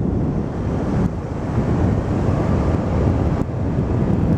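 Wind rushing over the microphone of a camera on a moving scooter, a steady loud buffeting, with the scooter's engine and road noise underneath.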